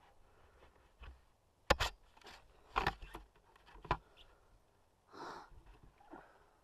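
A few sharp knocks and clicks close to the microphone, with the motorcycle's engine not running, and a short breathy rush of noise about five seconds in.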